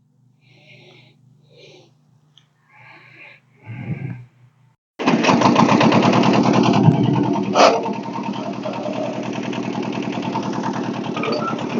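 A faint low hum for about five seconds, then the Kubota's diesel engine comes in suddenly and loud, running hard with a fast, even chug. A single sharp knock cuts through it a couple of seconds later.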